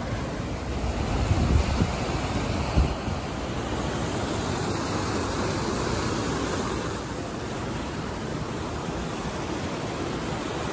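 Steady rush of fast-flowing mountain water from a monsoon-fed waterfall or creek. Wind buffets the microphone with low rumbles during the first few seconds.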